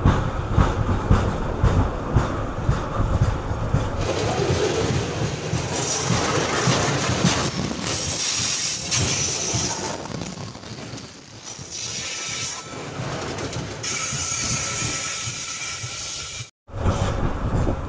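Loaded coal hopper wagons of a long freight train rolling past on the rails: a heavy rumble with a rhythmic clatter of wheels over rail joints, giving way to a higher hiss of steel wheels with a faint squeal. The sound cuts out for a moment near the end.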